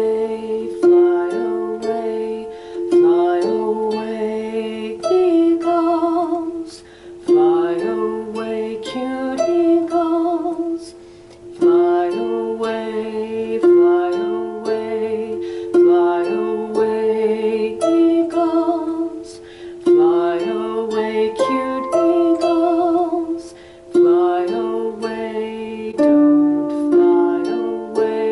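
Lever harp being plucked with one hand: a short, simple beginner's phrase played over and over, each repeat starting with a strong plucked note about every four seconds. A held, wavering tone sounds within each repeat.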